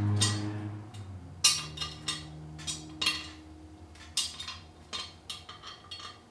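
Irregular metallic clinks and knocks, about a dozen over six seconds, from the aluminium lower intake manifold of a supercharged GM 3800 V6 being seated on the engine and handled by hand. A low hum dies away in the first second.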